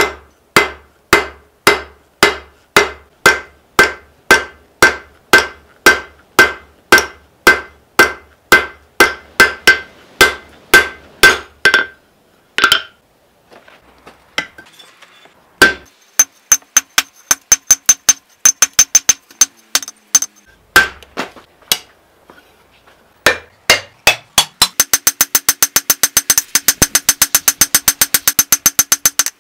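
Hand hammer forging a red-hot steel blade on an anvil: steady ringing blows at a little under two a second, then after a short pause quicker, lighter blows, ending in a fast run of ringing strikes.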